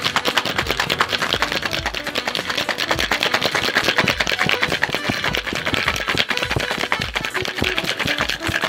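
Ice cubes rattling and knocking inside a Boston shaker, a metal tin fitted over a mixing glass, shaken hard in a fast, even rhythm to mix and chill egg, syrup and milk.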